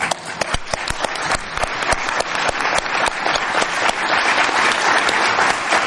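Audience applauding at the end of a speech, a dense patter of many hands clapping that builds and grows louder over the first few seconds, then holds steady.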